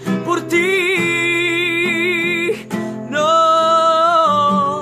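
Male voice singing with acoustic guitar: two long held notes with a wavering pitch, over the strummed guitar.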